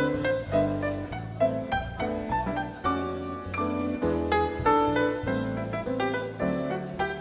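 Instrumental background music led by piano, with a low bass line under it.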